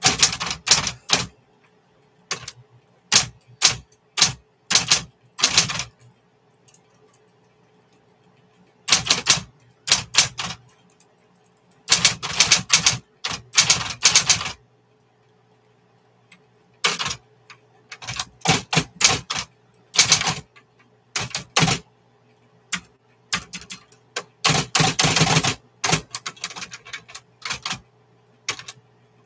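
1960s Smith-Corona Coronet electric typewriter being typed on in bursts of rapid keystrokes with pauses of a second or two between them, over the steady hum of its running motor.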